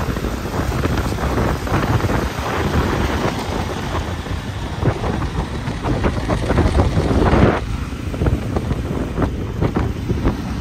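Wind rumbling and buffeting on the microphone of a moving motorcycle, over engine and road noise, with a louder gust about seven seconds in.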